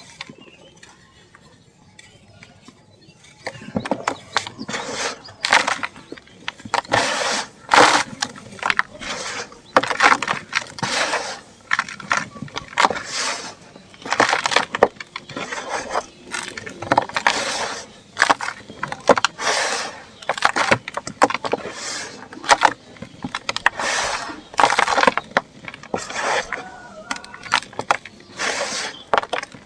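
Lumps of dried sand, dirt and cement crumbling and breaking apart: a quick run of crunching, crackling breaks that starts about three and a half seconds in and goes on in bursts, many of them about a second apart.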